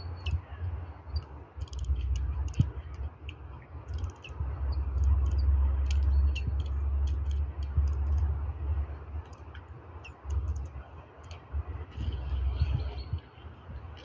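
Wind rumbling on the microphone, loudest in the middle, with scattered sharp clicks and a few short high chirps from a Eurasian nuthatch feeding on sunflower seeds from a hand.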